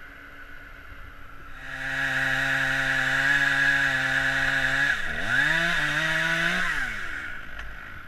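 Two-stroke Stihl chainsaw revving up about two seconds in and held at high revs. The revs dip sharply about five seconds in, climb back, then fall away near the end.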